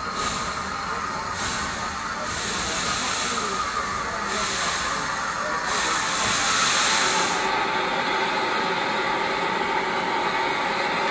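Saddle-tank steam locomotive moving slowly, its steam hissing in long bursts about every second and a half. From about seven seconds in, the bursts give way to a steadier, lower sound.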